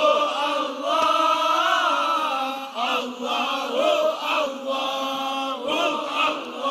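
Sholawat, Islamic devotional chanting: a male lead voice and others singing together in long, drawn-out, ornamented phrases.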